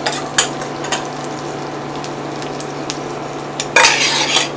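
Steady sizzling of food frying in a pan, with a metal spoon clicking against a stainless-steel bowl a few times and a louder scrape near the end.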